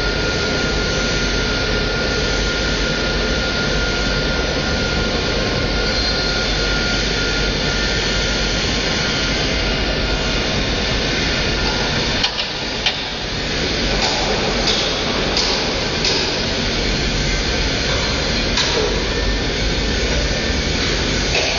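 Heavy machinery running steadily with a loud, even noise and a faint high whine over the first few seconds. About twelve seconds in the sound dips briefly with a couple of sharp knocks, and a few short clacks follow.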